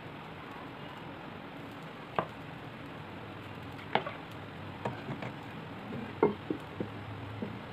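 Oil heating in a frying pan on a gas burner: a steady hiss with scattered, irregular sharp ticks and pops as the oil starts to spit.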